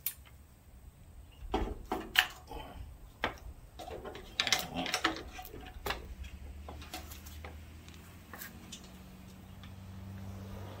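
Scattered metallic clanks and clicks of hand tools being handled and set down while working on a riding mower. A low steady hum builds near the end.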